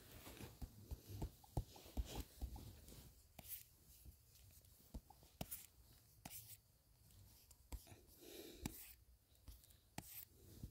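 Faint, irregular taps and short scrapes of drawing on a tablet's touchscreen.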